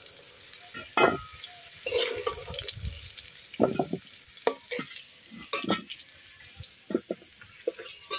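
Long metal spatula scraping and clinking against a metal wok as fried potato and taro pieces are lifted out of the oil, in irregular strokes. A faint sizzle of the hot oil runs underneath.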